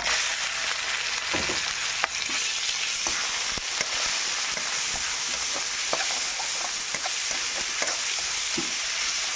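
Pork pieces sizzling steadily in hot oil with sautéed onion and garlic in a pan. They are stirred, with scattered short taps and scrapes against the pan.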